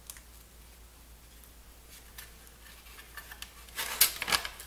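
Small clicks and crinkles of a plastic keyboard membrane ribbon on a Timex Sinclair 1000 being worked by hand into its connector, with a cluster of sharper clicks about four seconds in.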